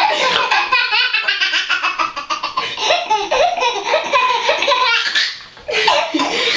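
Eleven-month-old baby laughing hysterically in long peals of fast, repeated belly laughs, with a short break for breath about five seconds in before the laughing starts again; echoing slightly in a tiled bathroom.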